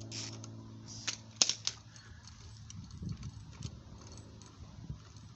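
Small metal hardware clinking and knocking as it is handled: a few sharp clinks, the loudest about a second and a half in, then softer dull knocks. The parts are those of a homemade bushing press: a carriage bolt, socket, washers and nut.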